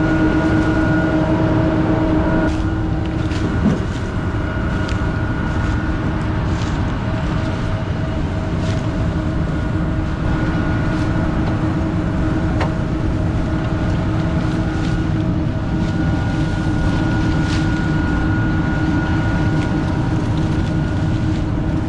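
Combine harvester running steadily: a constant low rumble with several steady whining tones from its drives and fans.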